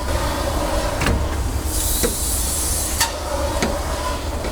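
Rubber coolant hose being worked onto the radiator's bottom outlet: handling and scraping with a rasping stretch near the middle and a few short clicks, over a steady low rumble.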